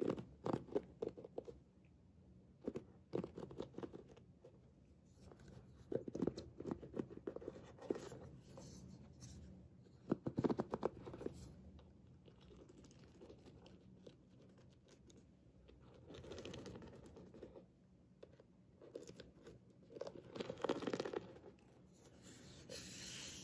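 Fingertips scratching and flicking across the bamboo pins of a bamboo paddle hairbrush, in short bursts of rapid clicky scratching every few seconds with softer rubbing in between.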